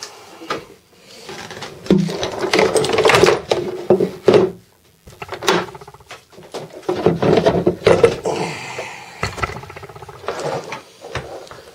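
A white plastic battery box and a 12 V car battery being handled and fitted together: irregular plastic scraping, rubbing and knocking, loudest in two stretches.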